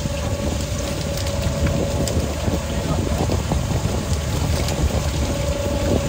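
Fishing trawler's machinery running, a steady low drone with a steady mid-pitched whine over it and a few faint ticks.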